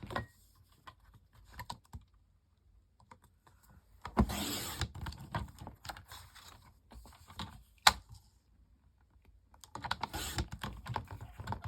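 Paper trimmer cutting through card: the blade slides along its rail in a dense, rasping, clicking stretch about four seconds in and another near the end, with a single sharp click in between.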